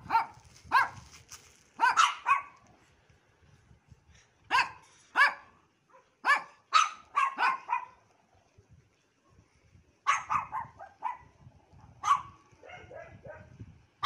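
Small dogs barking in high-pitched yaps, in clusters of several barks with pauses of a second or two between.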